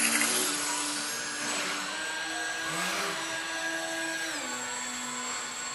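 Electric motor and propeller of a small indoor RC model aeroplane whining. The pitch steps down and up with the throttle, and the tone sweeps as the plane passes close by, once at the start and again about three seconds in.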